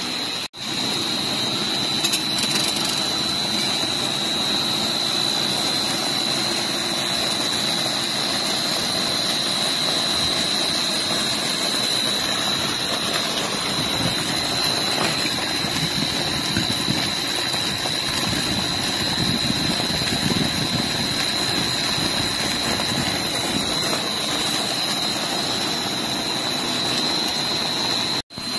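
Co-rotating twin-screw food extruder running steadily as it puffs sorghum and millet flour into pellets: a constant machine noise with a steady high-pitched whine over it.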